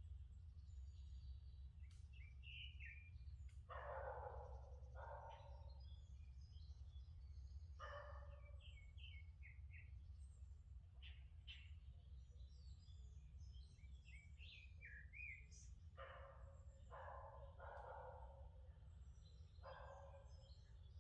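Songbirds chirping and singing in a forest, faint, over a steady low rumble. A dog barks several times in short groups, about four seconds in, near eight seconds, and again through the last third.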